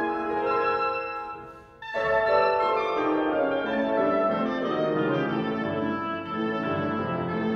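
Oboe and piano playing classical chamber music. The music fades almost to nothing about a second and a half in, then a new phrase enters sharply just before two seconds, with the piano's bass stepping downward beneath the oboe.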